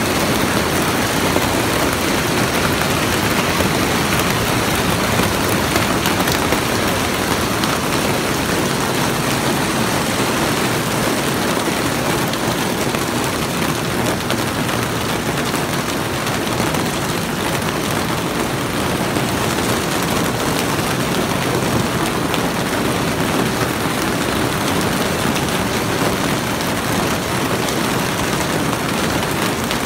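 Hail and heavy rain pelting a greenhouse roof: a loud, steady din of dense impacts that doesn't let up.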